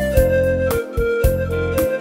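Background music: a keyboard melody of held notes over a steady beat with heavy bass.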